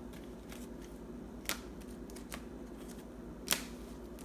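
Trading cards being handled on a table: a few light clicks and taps, the loudest about three and a half seconds in, over a low steady hum.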